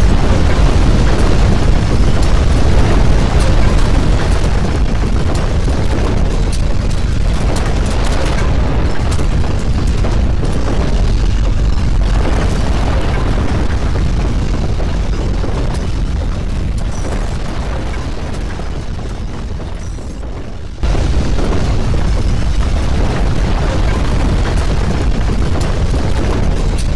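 Loud, deep rumbling with crackling, the sound of earthquake shaking. It fades slowly, then cuts back in at full loudness about two-thirds of the way through.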